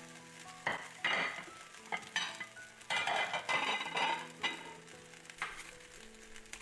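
Hot oil and beef juices sizzling and spitting in a frying pan after the meat has been removed, in irregular bursts, over soft background music.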